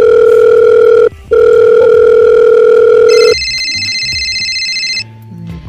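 Mobile phone call ringing through: two long, loud, steady low ring tones with a short break between them, then a higher electronic phone ringtone about three seconds in that stops shortly before the end.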